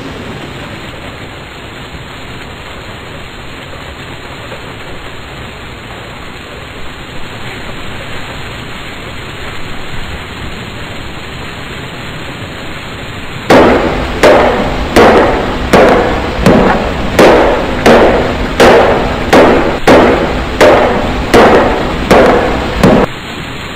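Action sound effects: a steady noisy rumble, then about halfway through a run of evenly spaced heavy bangs, nearly two a second. Each bang fades quickly, and the run stops shortly before the end.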